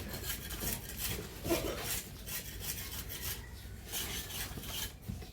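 Plastering trowel scraping wet cement plaster across a wall in quick repeated strokes, spreading and smoothing the render.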